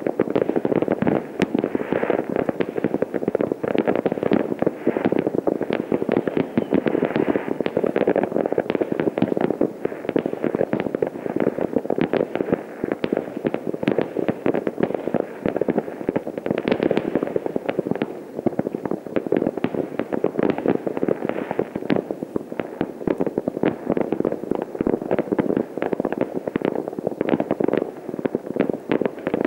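Many fireworks going off at once across a town: a dense, continuous barrage of overlapping bangs, cracks and pops with no pause.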